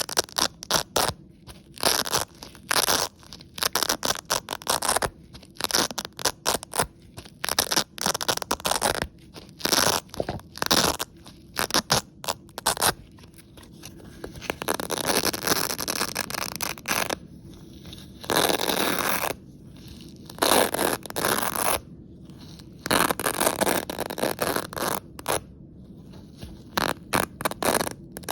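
Velcro hook-and-loop fastener being ripped apart over and over. The first half is many quick, short rips; after that come several longer, slower pulls of a second or two each.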